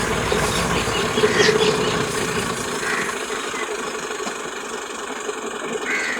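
Steady engine hum, like a vehicle idling, whose low rumble drops away about halfway through. A few short bird calls sound over it, one around a second and a half in, one at about three seconds and one near the end.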